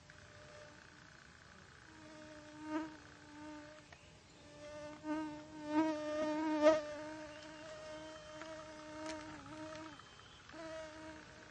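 A flying insect buzzing close to the microphone. Its steady hum sets in about two seconds in, swells and fades several times, is loudest in the middle and comes back briefly near the end. A couple of sharp clicks sound over it.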